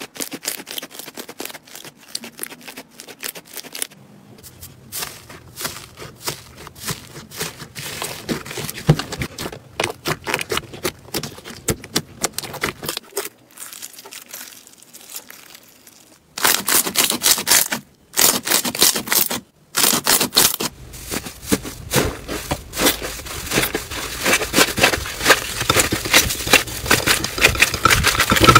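Slime being squeezed and poked, making dense runs of sticky clicks and crackles. The sound breaks off briefly a few times and changes character, growing louder and denser over the second half.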